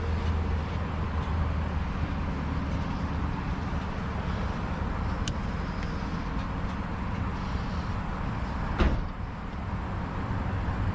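Steady motor-vehicle engine noise with a low hum that fades after a few seconds, then one loud sharp knock about nine seconds in, as scrap is set into the truck bed.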